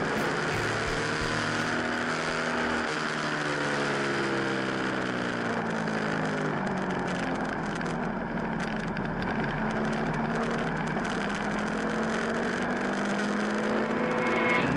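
BMW F800GS parallel-twin engine running at road speed through curves, heard from the bike over steady wind rush. The engine pitch falls and rises slowly with the throttle.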